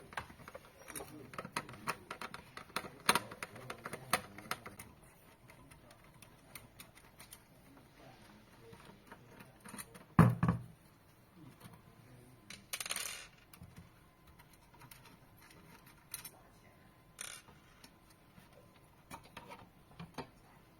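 Small clicks and taps of a screwdriver and loose screws while the screen board is unscrewed, with a single heavy thump about ten seconds in and a short scrape a few seconds later.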